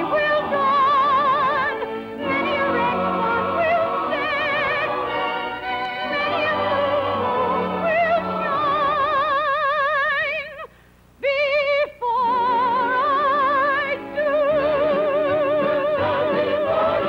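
A woman's soprano voice singing a show tune, holding long notes with a wide, even vibrato over instrumental accompaniment. It breaks off for a moment about two-thirds through, then comes back in on a held note.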